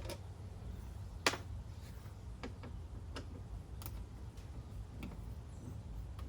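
Scattered light clicks and taps of hand tools and plastic trim pieces during work on a van's interior door panel, the sharpest about a second in, over a steady low hum.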